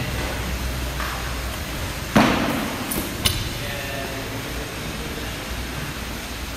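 Barbell gear being handled: a heavy thud about two seconds in, then a sharp metallic clink with a brief ring about a second later, from a steel spring clip collar on a barbell sleeve loaded with rubber bumper plates.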